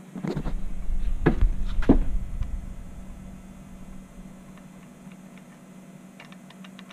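Low rumbling handling noise with two knocks for the first two seconds or so, then a steady low hum. Near the end come a few faint light metallic clicks as a loose castle nut is turned by hand on the four-wheeler's stripped front axle threads.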